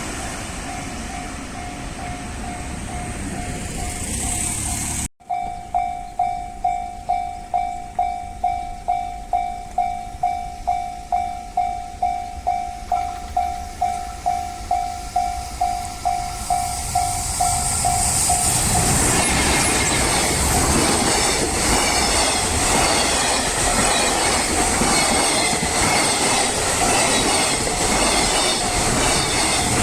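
Japanese level-crossing warning bell ringing in a steady, even pulse about twice a second. About eighteen seconds in, a train arrives and passes over the crossing, its wheels clattering on the rails and drowning out the bell.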